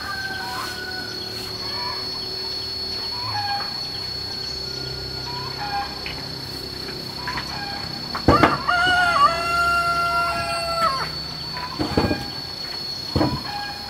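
A rooster crows once, a long drawn-out call starting about eight seconds in, over a steady high-pitched tone and scattered short bird chirps. A few wooden knocks come as a bench is set down near the end.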